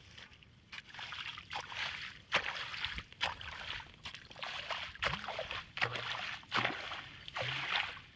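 Water splashing and sloshing in repeated bursts, a little under one a second.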